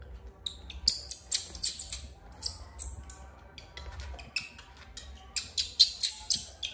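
A string of short, sharp, high-pitched squeaks and crackles, a few a second, as a baby macaque plays among plastic toys and spiky rubber balls, over soft background music.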